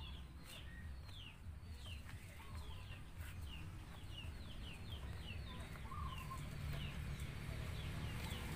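Chicks peeping: a steady run of short, high, falling peeps, about two or three a second.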